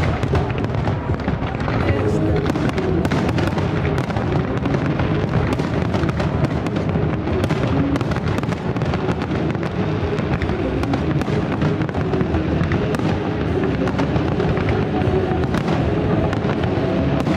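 Fireworks display: frequent bangs and crackles over loud music.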